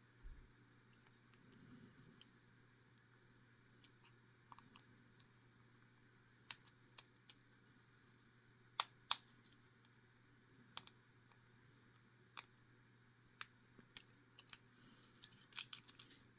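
Lock pick and tension wrench working in a Master Lock No.1 padlock: scattered small metallic clicks and scrapes as the pins are lifted, bunching into a quick run near the end. The pins grate instead of gliding, a crunchy, grindy lock.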